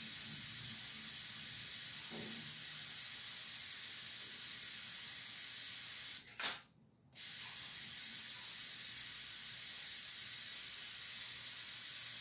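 Steady high hiss of corona discharge from the ion lifter's high-voltage wire, run at about 110,000 volts, as the lifter lifts off. About six seconds in comes one sharp snap, after which the hiss cuts out for a moment and then resumes.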